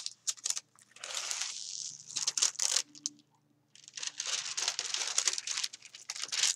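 Clear plastic cover film on a diamond painting canvas crinkling as it is peeled back off the poured glue and smoothed down again by hand, in two long stretches with a short pause between.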